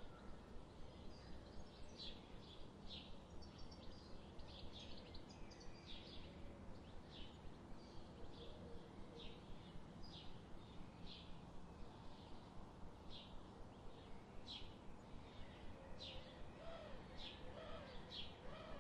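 Small birds chirping in a forest, short high chirps repeated about once or twice a second over a faint steady background hiss, with softer lower warbling notes near the end.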